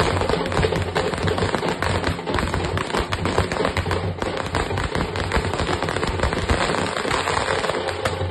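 Firecrackers bursting on the road in a rapid, unbroken run of sharp bangs and crackles that lasts throughout.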